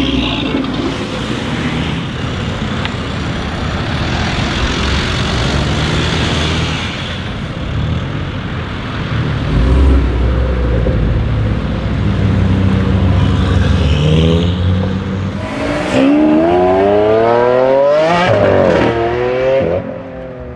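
BMW M3 F80's twin-turbo straight-six running loud through a full titanium Innotech Performance (iPE) exhaust. About three-quarters of the way in it accelerates hard, its pitch climbing steeply for a couple of seconds, dropping sharply, then climbing again before fading near the end.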